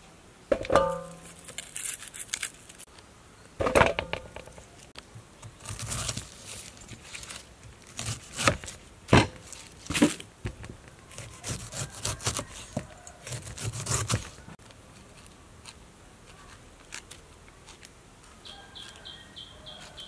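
Kitchen knife cutting and paring the skin off a pineapple on a wooden chopping block: a run of sharp cuts and rasping slicing strokes, the first with a short ringing knock. Near the end a high chirping starts, repeating about three times a second.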